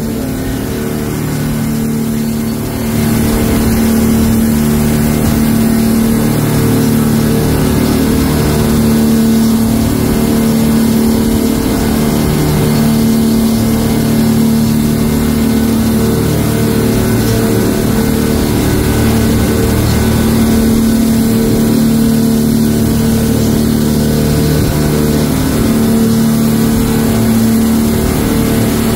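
An engine running steadily at a constant speed, getting louder about three seconds in.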